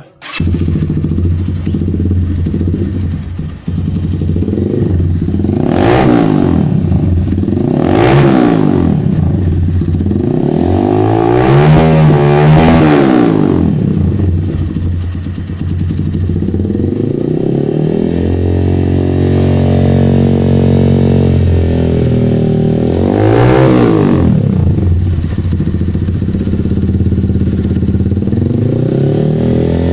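KPR 200 motorcycle engine breathing through an aftermarket SC Project exhaust, idling and blipped repeatedly. There are short revs about 6 and 8 seconds in, a longer rev held around 11 to 13 seconds, and another sharp one near 23 seconds. Each rev rises and falls back to idle.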